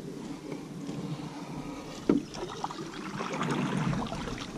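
Canoe sounds on the water: water and hull noises as the boat is moved about, with one sharp knock about two seconds in.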